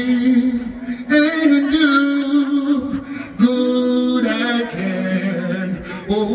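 Male reggae singer singing live into a microphone through an arena PA, in long held notes phrase after phrase.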